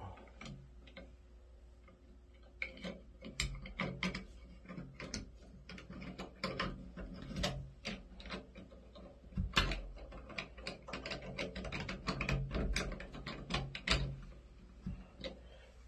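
Rapid, irregular clicking and ratcheting of small parts being turned and handled by hand at a Moen single-handle shower valve cartridge. It starts a couple of seconds in and stops shortly before the end.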